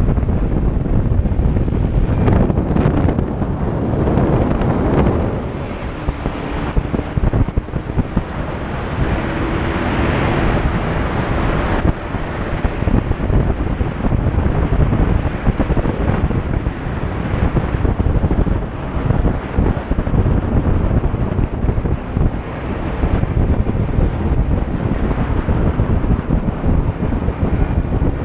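Heavy wind buffeting on the microphone of a motorcycle riding at speed, with the engine's drone underneath.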